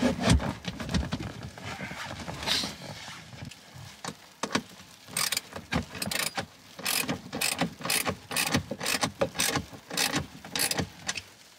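Hand screwdriver driving screws into the armrest's wooden base, scrapes and handling noise at first, then a steady run of sharp clicks, about two to three a second, through the second half.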